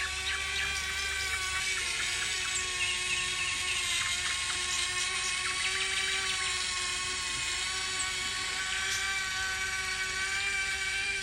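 Small electric motor and gearbox of a toy excavator, whining steadily at an even pitch.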